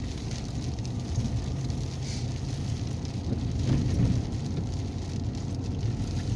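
Steady low drone of a four-wheel-drive vehicle driving on a snowy road, heard from inside the cab, with a light patter of frozen mix on the body. It swells briefly about four seconds in.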